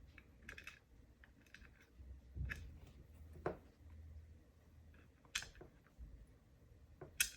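A handful of faint, sharp metal clicks and taps spread over several seconds: small parts of a disassembled brass lock cylinder being handled, its pins and master wafers being sorted out of the chambers.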